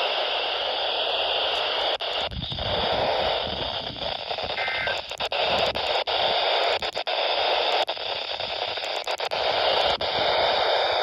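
Radio receiver hissing with static on a frequency with no clear station, the steady hiss cut by brief dropouts every second or so.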